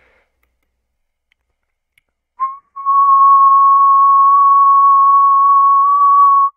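A person whistling one steady, high held note, after a short first try about two and a half seconds in; the note stays level and stops abruptly near the end.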